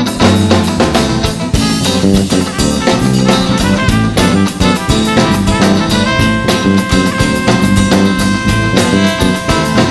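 Live band playing an instrumental passage, with the full band and drum kit coming in at the start over a guitar. Brass plays along, holding long notes from about halfway through.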